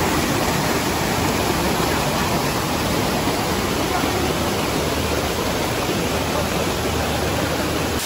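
Steady rush of a waterfall and its cascades pouring and splashing over boulders.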